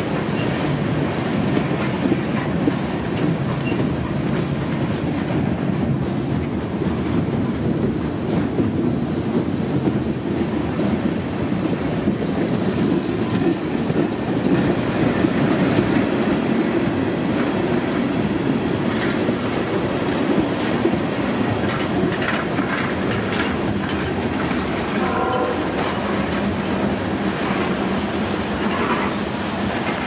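Freight train's tank cars and covered hoppers rolling past close below, steel wheels on rail making a steady rumble, with scattered clicks as the wheels cross the joints.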